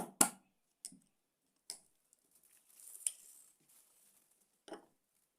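Sharp taps and clicks of hand work on a small object: a quick run of taps at the start, single clicks about one and two seconds in, a short soft scrape around three seconds, and one last knock near the end.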